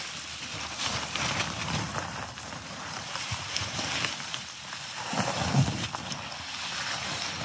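Dry, twiggy scrub crackling and scraping against clothing and pack as a person pushes through it on foot, with heavy footsteps thudding a few times about five seconds in.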